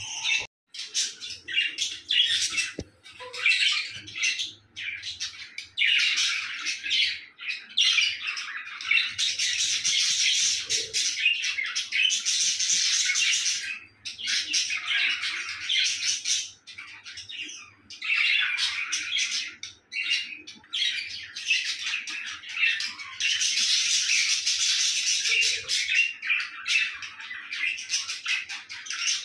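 Budgerigars chattering and chirping: long runs of rapid warbling broken by short pauses.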